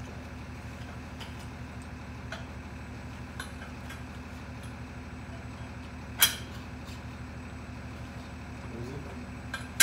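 Metal-on-metal clank from a steel bar being pushed down and twisted inside a plunger pump's fluid end to seat a part in its grooves: a few light ticks, one sharp clank about six seconds in, and a ringing clink right at the end. A steady low hum lies underneath.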